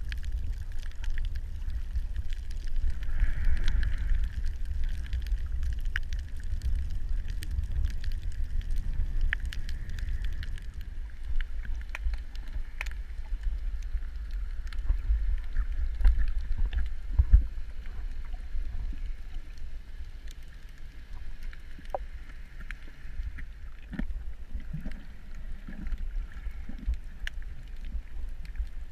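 Steady low rumble of moving water with scattered faint clicks and crackles, as heard through an underwater camera.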